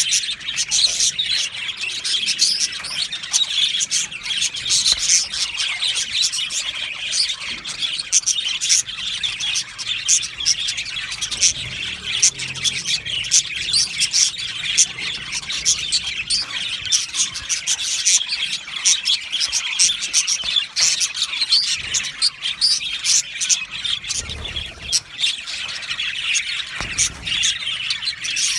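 A flock of budgerigars chirping and chattering together in a continuous, overlapping stream of high chirps, warbles and squawks.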